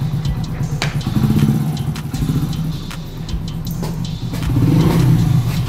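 Small motorcycle engine running at low revs, getting louder about four and a half seconds in.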